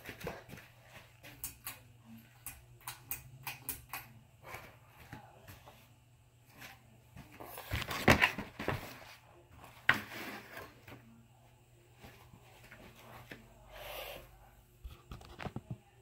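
Scattered light clicks and knocks of movement close to the microphone, a louder rustling noise about halfway through, then a single sharp click about two seconds later as a white ceiling fan is switched on from standstill.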